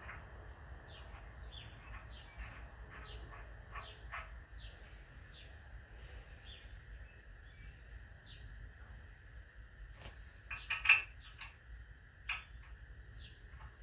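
Small birds chirping in short calls throughout, over a faint steady background. A short burst of sharp clatter comes a little after ten seconds in, with one more sharp click just after.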